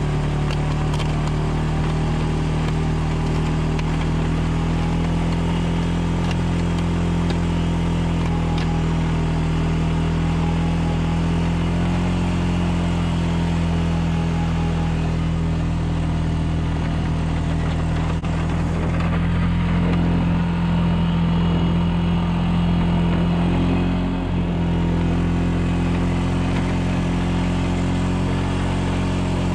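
Honda Rancher ATV's single-cylinder engine running steadily under load while its front-mounted blade pushes snow. The pitch rises slightly about two-thirds of the way through and dips briefly soon after.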